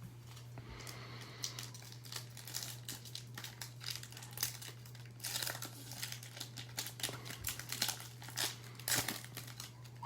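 Plastic wrapping crinkling and tearing as a sealed box of trading cards is opened, with irregular crackles and small clicks, busiest in the second half, over a steady low electrical hum.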